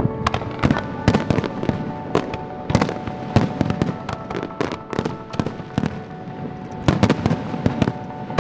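Aerial fireworks bursting in quick, irregular succession, a dozen or more sharp bangs and crackles, some overlapping.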